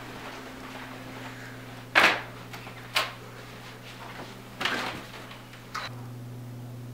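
Knocks and bangs of handling sounds. There is a loud bang about two seconds in, a sharp knock a second later and two softer knocks near the end, all over a steady low hum.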